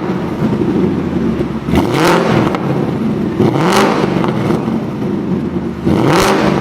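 Ford Mustang Mach 1 V8 exhaust, fitted with a high-flow sports catalytic converter and an H-pipe, idling and revved with three quick throttle blips. Each blip rises in pitch and falls back to idle.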